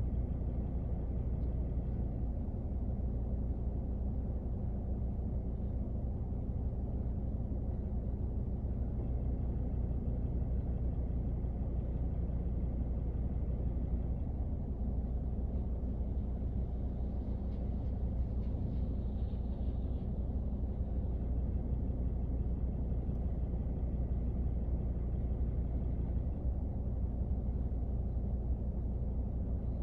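Steady low, dull rumble inside a car's cabin during rain.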